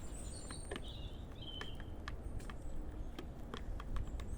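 Chickens pecking feed off a feeding table: quick, irregular sharp taps, with a few short high bird chirps over them.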